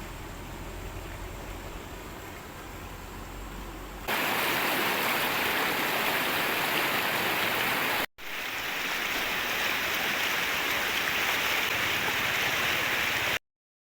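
Loud, steady rushing of flowing water that starts abruptly about four seconds in, breaks off for an instant a little after halfway, and cuts off sharply near the end. Before it there is a quieter low hum.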